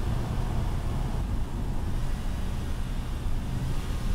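BMW 335xi's twin-turbo inline-six, fitted with a DCI intake, running at a steady highway cruise: a low, even drone of engine and road noise with no revving or rise in pitch.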